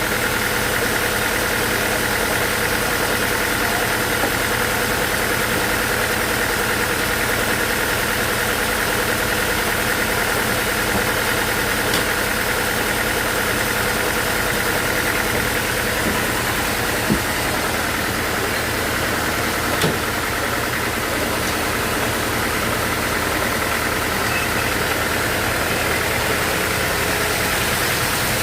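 Bandsaw sawmill running steadily, a constant machine drone with a few faint clicks.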